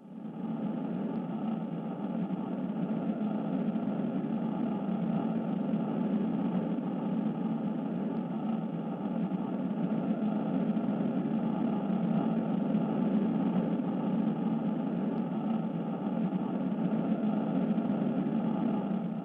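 Steady, engine-like drone with no beat or change in pitch, the soundtrack under a rotating-ring animation. It fades in quickly at the start and fades out at the end.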